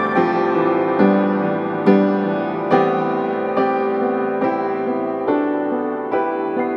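Slow background piano music, a note or chord struck about once a second and left to ring.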